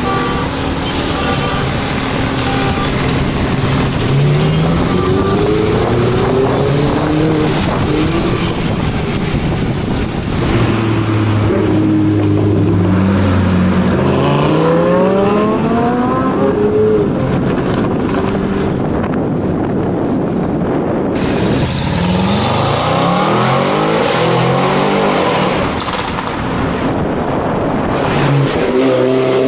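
Ferrari 488 and Lamborghini Huracán engines accelerating hard several times. The pitch climbs through each gear and drops back at each shift.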